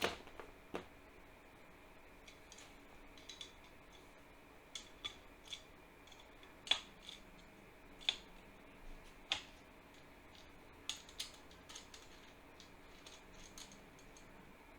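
Scattered light clicks and taps, irregular and sparse, a few of them sharper and louder, as of small metal tools or parts being handled.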